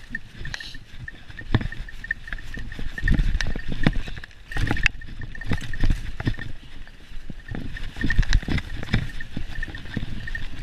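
Mountain bike rattling and knocking over a rough dirt trail at speed, with irregular jolts and a low rumble, as heard from a camera on the rider.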